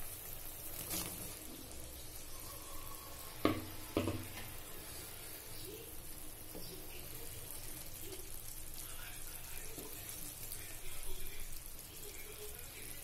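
Watery spiced gravy simmering with a steady hiss in a pan as boiled yellow peas are added and stirred in, with two sharp knocks about half a second apart a few seconds in.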